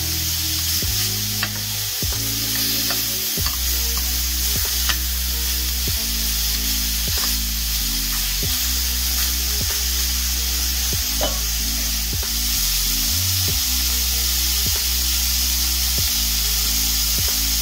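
Beef stew meat sizzling as it sears in olive oil in a frying pan, the pieces turned now and then with tongs. Background music with a steady beat plays underneath.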